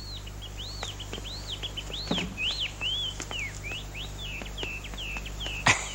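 A quick run of short bird-like chirps, each rising then falling in pitch, about two a second: a comic walking sound effect. A sharp knock comes near the end.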